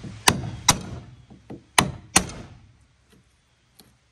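Hammer striking a punch held against an epoxy-sealed hole in a metal sign plate, driving out the cured epoxy patch: four sharp blows in two pairs about a second and a half apart, then a few lighter taps.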